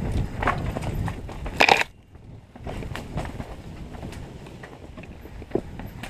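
Mountain bike rattling and knocking as its tyres roll down over rocks, with irregular clattering throughout. A loud burst comes a little under two seconds in, after which the rattling drops off suddenly and goes on more quietly.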